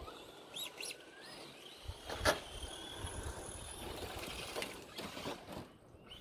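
Radio-controlled short course truck running on a dirt track, its motor whining thinly and rising in pitch about a second and a half in. A sharp knock comes at just over two seconds.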